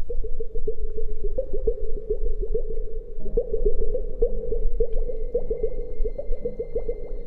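Close-miked ASMR trigger sounds: rapid soft crackling and squishing, many small pops a second, with faint held tones coming in partway through.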